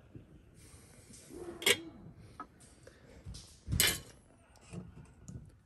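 Light tableware sounds: a few soft clinks and taps of cutlery and plates and the rustle of an aluminium-foil packet, with two short louder noises about a second and a half and four seconds in.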